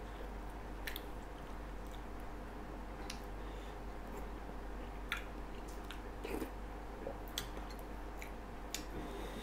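A man chewing a spoonful of ketupat rice cake and tender blengong meat in coconut broth, eating from a bowl with a spoon. There are a few light clicks of the spoon, over a steady low hum.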